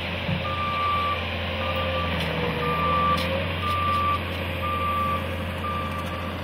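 Backup alarm of a compact track loader beeping about once a second, six beeps, over the steady drone of its running engine: the machine is reversing.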